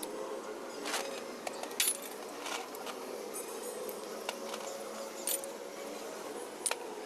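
Scattered light clinks and taps, like tools and small engine parts being handled during an engine rebuild, over a steady background hum.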